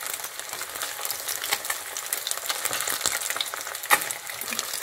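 Battered fish pieces sizzling in hot oil in a stainless steel frying pan, with frequent spitting pops and a wooden spatula moving them about as they fry to golden brown. A sharper knock comes about four seconds in.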